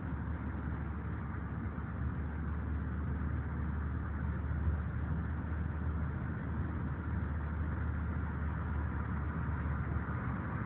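Car engine and road noise heard from inside the cabin while driving: a steady low hum with a hiss above it.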